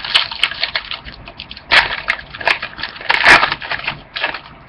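Trading cards being handled and flipped through by hand: a run of quick, irregular rustles and snaps of card stock, with a few louder flicks.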